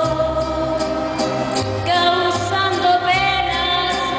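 A woman singing a held, gliding melody with a live mariachi band of violins and guitars accompanying her over a steady bass line.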